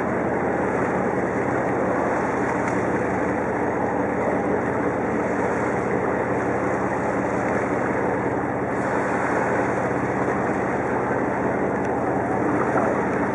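A boat's engine running steadily, under a continuous rush of wind and water.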